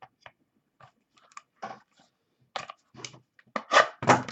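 Trading-card packaging being handled by hand: scattered short crinkles and scrapes, sparse at first, then louder and denser near the end.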